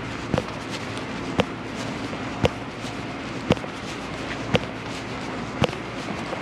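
Sharp clicks at a very even pace of about one a second, six in all, over the steady hum of city street noise.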